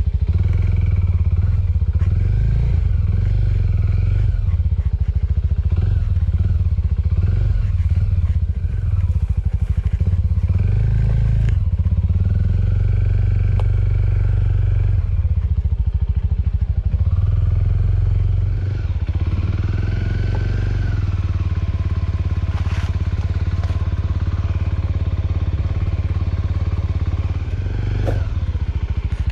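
Small Suzuki motorcycle's engine running as it is ridden along a rough dirt track. The engine note rises and falls with the throttle.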